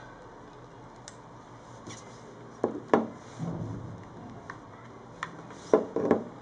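A few sharp plastic-sounding clicks and knocks from small objects being handled: two about three seconds in with a soft low rumble after them, and another close group near the end.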